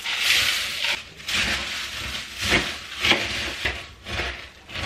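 Cornflakes being poured from a plastic bowl into a mixing bowl and stirred into melted chocolate: a longer rustle in the first second, then short, uneven rustling bursts as they are mixed.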